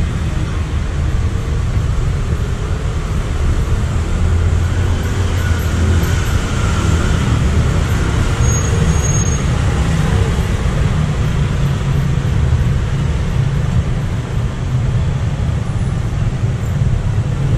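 Street traffic noise from cars and scooters on the road alongside: a steady, continuous low rumble.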